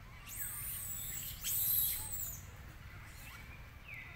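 A macaque's high-pitched squeal lasting about two seconds, loudest near its end, then a shorter falling call near the end.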